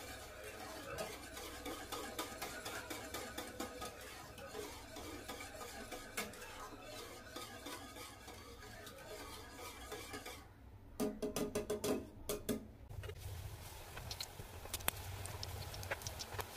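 Wire whisk beating curd in a steel bowl: rapid clicking and scraping of the wires against the bowl. About eleven seconds in comes a short run of much louder knocks, then a low hum with scattered crackles.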